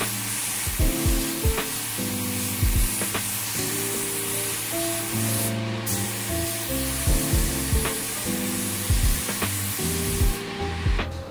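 Gravity-feed spray gun hissing steadily as it sprays paint onto a bicycle frame, with a brief break a little past halfway and stopping about a second before the end. Background music with a steady beat plays underneath.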